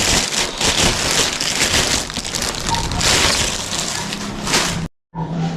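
Plastic packaging crinkling and rustling as vacuum cleaner parts are unwrapped, a dense irregular crackle. The sound drops out abruptly for a moment near the end.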